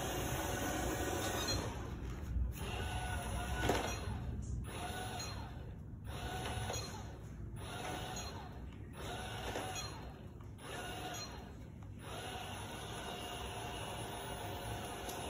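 iLife V55 Pro robot vacuum running, its motor and brushes making a steady whir, with two sharp knocks a little after two and nearly four seconds in. The noise dips about every second and a half from about two to twelve seconds in.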